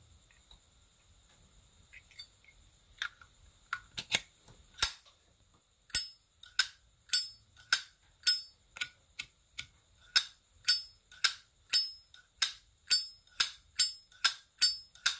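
A 2003 Zippo lighter's hinged lid flicked open and snapped shut over and over, each stroke a sharp metallic clink with a short ring. A few scattered clicks come first, then a steady run of about two clinks a second from about six seconds in. The ring is what a Zippo's 'âm' (its sound) is judged by, and here it is called good and very ringing.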